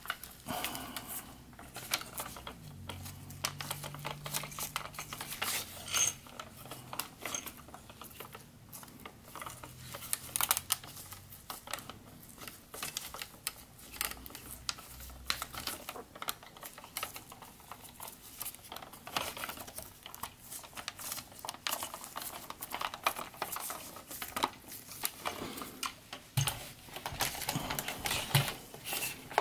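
Hard plastic parts of a large Gigapower Grassor transforming robot dinosaur figure clicking and knocking as they are handled and pressed together: many small, irregular clicks.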